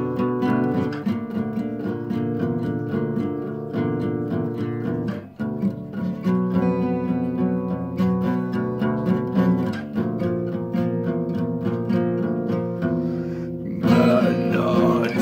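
Acoustic guitar played hard in a driving metal style, a rapid, steady stream of strummed and picked strokes, with a brief break about five seconds in. A man's singing voice comes back in near the end.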